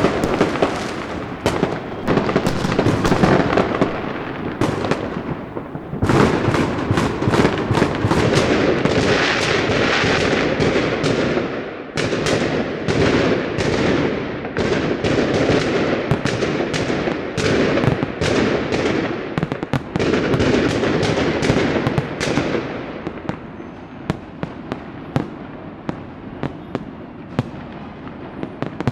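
Fireworks and firecrackers going off: a dense barrage of rapid bangs and crackling that thins out about 22 seconds in to scattered single pops.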